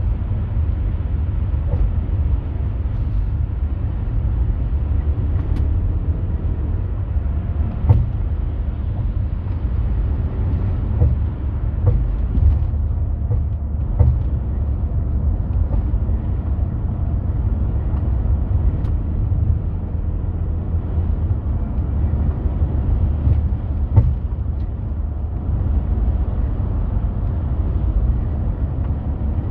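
VW T5.2 4Motion BiTurbo van running with a steady low drive rumble, broken every few seconds by a short, sharp knock. The knocking comes with load changes, on and off the throttle, and is the fault being documented.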